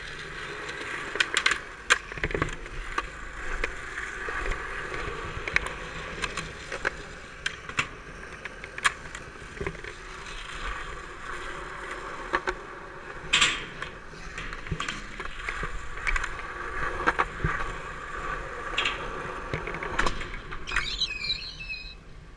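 Skateboard wheels rolling over rough concrete, with sharp clacks from tail pops and board landings scattered throughout.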